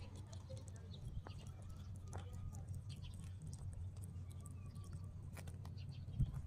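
Rabbits chewing leafy greens and stems: faint, quick crunching and clicking, over a steady low hum, with one short louder knock near the end.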